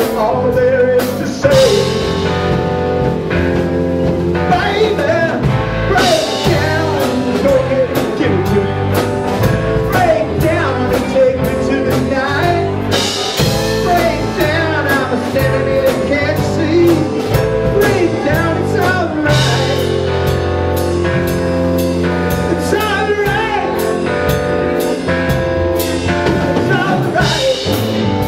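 Live rock band playing a blues-rock song, with guitar and drum kit.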